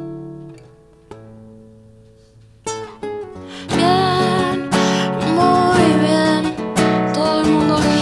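Classical acoustic guitar chords ring out and fade away, then strumming starts again about two and a half seconds in, and a woman's singing voice joins over the guitar about a second later.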